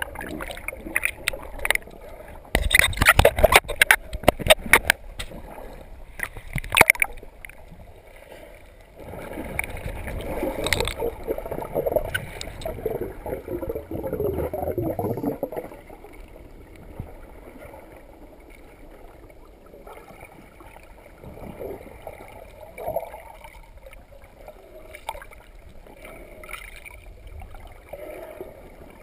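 Water splashing and gurgling around a GoPro in its waterproof housing as it dips at the surface while snorkeling. A run of sharp splashes comes in the first few seconds, then a stretch of bubbling from about nine to fifteen seconds. After that comes a muffled underwater hush with a few small knocks and gurgles.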